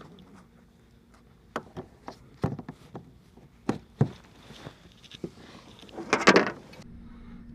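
Irregular knocks and clicks of fishing gear being handled in a plastic kayak, with a louder scraping rustle about six seconds in. A faint steady hum starts just before the end.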